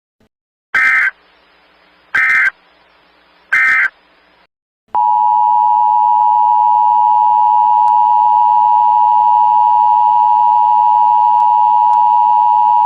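Emergency Alert System signal: three short bursts of the SAME header data tones about a second and a half apart, then the two-tone EAS attention signal, one steady loud tone held for about eight seconds that stops abruptly.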